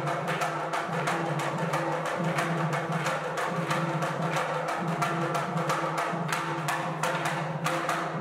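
Tharu stick dance: many wooden sticks clacking together in a fast, steady rhythm, with two-headed barrel drums beating along underneath.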